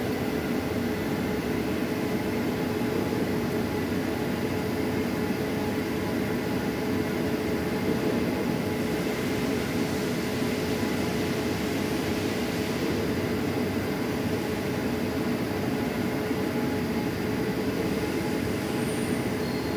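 Steady mechanical drone of running machinery, with a few constant pitches in it.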